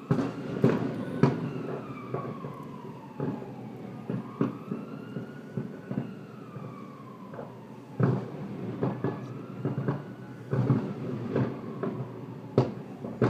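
Fireworks shells bursting in irregular succession, about a dozen bangs with echoes trailing off the buildings. Behind them a siren wails, slowly falling and rising in pitch.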